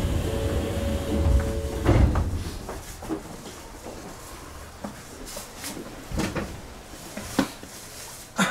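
A train's sliding passenger doors running along their tracks at a station stop, ending in a thud at about two seconds. After that come a few light clicks over a low background.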